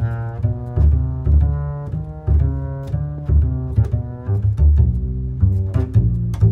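Background film music: low strings playing a line of separate plucked and bowed notes, about two notes a second.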